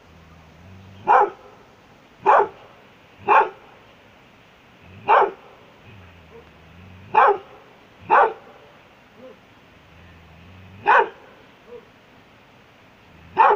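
Dog barking: eight loud single barks at irregular gaps of one to four seconds.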